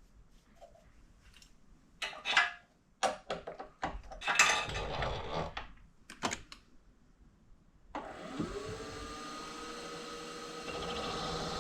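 A few sharp metal knocks and scrapes of handling. About eight seconds in, the spindle motor of a Precision Matthews PM-25MV benchtop mill starts, its pitch rising quickly and settling into a steady running whine.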